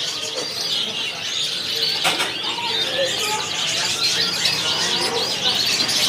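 Many caged canaries singing at once, an unbroken mix of rapid high chirps and trills.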